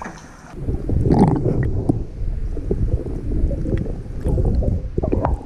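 Water heard from below the surface of a cenote: about half a second in the sound turns muffled, becoming a low rumbling and gurgling of moving water and bubbles around a submerged camera.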